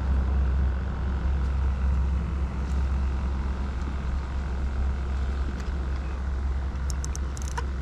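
Wind buffeting the microphone: a steady low rumble over a light hiss. A few small clicks come near the end.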